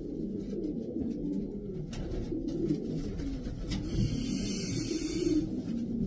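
Racing pigeons cooing continuously, several low calls overlapping. In the second half a rustling hiss lasts for about a second and a half.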